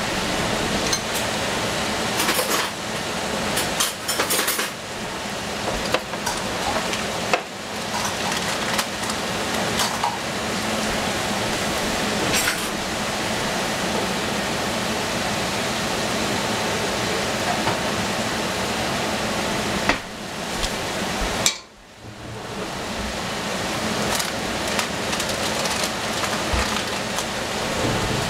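Stir-frying vegetables in a pan: a steady sizzle, with a metal spatula clinking and scraping against the pan. About two-thirds of the way through, the sizzle drops away for a moment and then builds back up.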